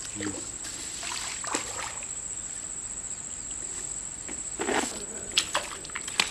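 Shallow muddy water sloshing as someone wades and moves in it, twice, with a few sharp clicks near the end, over a steady high-pitched insect drone.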